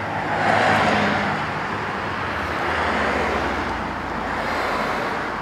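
Road traffic going by: a steady hiss of tyre and engine noise that swells about half a second in and then holds.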